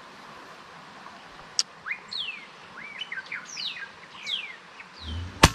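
Small birds chirping in quick falling whistled notes, then near the end a single sharp crack from a PCP air rifle (an Avenger in 5.5 mm) firing, with a fainter snap right after it.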